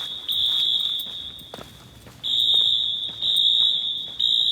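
Synchronized Wheelock AS fire alarm horns sounding the temporal-3 evacuation pattern: long high-pitched horn blasts in sets of three with a short pause between sets. The blasts echo through a parking garage.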